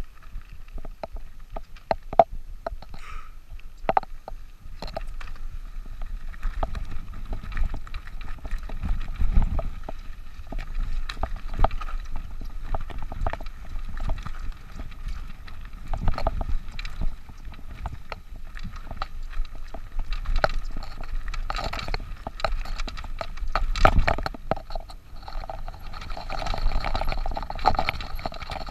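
Mountain bike riding over rough trail: frequent rattling clicks and knocks over a continuous low rumble.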